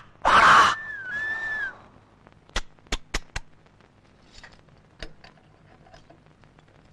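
A short loud hiss with a thin whistling glide near the start, then a handful of sharp metallic clicks: a thin pick being worked in the keyhole of a steel safe.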